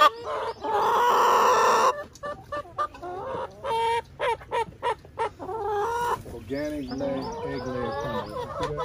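A flock of farm chickens clucking and squawking in many short calls, with a rooster crowing once, long and loud, in the first two seconds.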